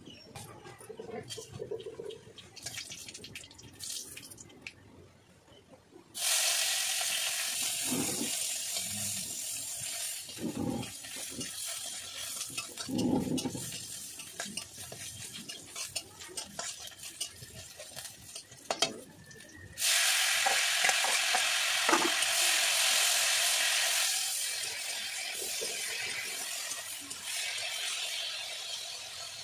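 Hot oil sizzling in a kadhai as food fries. Small clinks at first, then a loud frying hiss starts suddenly about six seconds in and cuts off. It starts again just as suddenly about twenty seconds in, when sliced ivy gourd (tendli) is frying in the pan and being stirred with a spatula, and it settles a little lower near the end.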